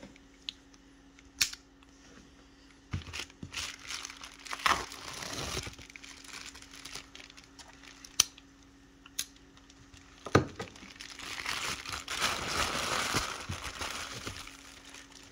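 Plastic bubble mailer being handled and opened by hand: crinkling and rustling with scattered sharp clicks and taps, and a longer spell of crinkling near the end as the package is opened.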